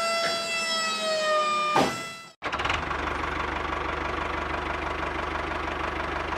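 A motor whine of the miniature tractor's tipping trailer, sliding down in pitch as the trailer lowers and stopping about two seconds in. After a brief break comes a steady engine-like running sound with a fast even pulse as the toy tractor moves off.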